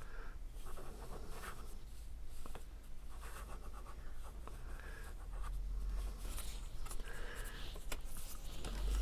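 Cardstock pieces being handled and pressed into place by hand: faint paper rustling and scraping with a few small taps.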